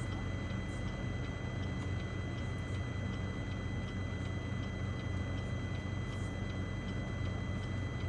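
Steady low hum of a car idling, heard inside the closed cabin, with faint steady high-pitched tones above it.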